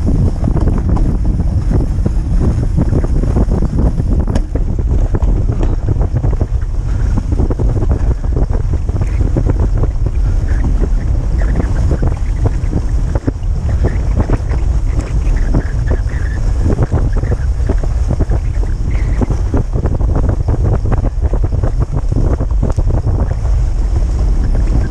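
Wind noise on the microphone of a moving dog sled, over sled runners scraping on packed snow, with irregular short knocks as the sled runs over the trail.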